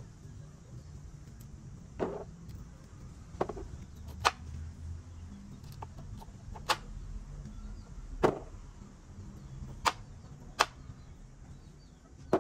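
A machete chopping peeled cassava into chunks on a wooden board: about seven sharp knocks at irregular intervals, one to two seconds apart.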